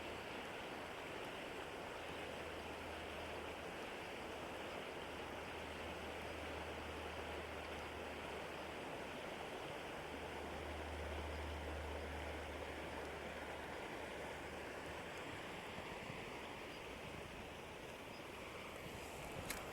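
Steady rush of flowing river water, with a low hum that comes and goes underneath and a couple of sharp clicks at the very end.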